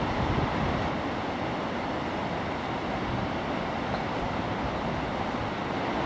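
Gullfoss, the large two-tiered waterfall on the Hvítá river, rushing: a steady, unbroken roar of heavy falling water.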